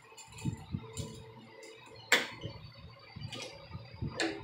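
Handling sounds: a shirt rubbing against the microphone, and metal clicks of pliers being clamped onto the fuel hoses to stop the flow of petrol. The loudest is a single sharp click about two seconds in.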